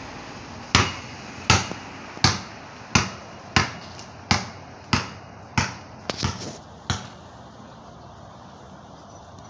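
A basketball dribbled on a concrete driveway: about eleven sharp bounces at a steady pace of roughly three every two seconds, stopping about seven seconds in.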